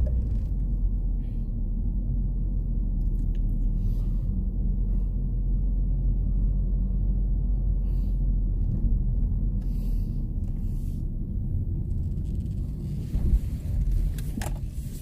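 Steady low rumble inside a car cabin while driving: engine and road noise.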